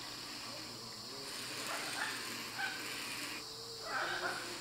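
Young plumbeous ibises giving short, faint, whining begging calls at a parent, several times, over a steady high hiss of insects.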